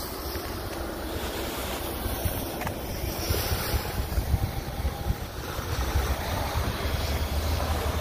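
Wind buffeting the microphone, a steady rushing noise with uneven low rumbles.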